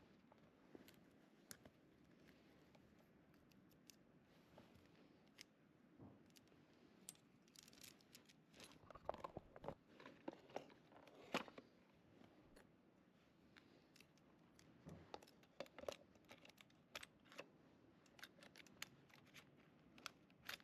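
Faint, irregular clicks, taps and light knocks of chainsaw parts and tools being handled while the saw is reassembled, busiest in a cluster about halfway through.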